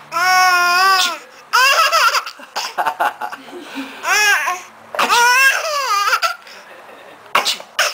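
Baby squealing and laughing in separate high-pitched calls. A long held squeal opens, then shorter rising-and-falling squeals and laughs follow.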